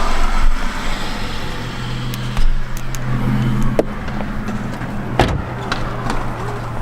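A car running, with a steady low hum and a few sharp clicks and knocks, the loudest a little past five seconds in.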